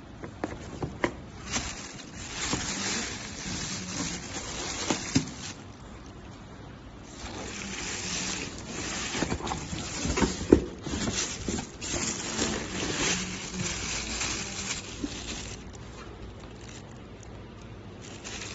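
Water spraying and splashing from a shower, coming and going in surges, with a few sharp knocks.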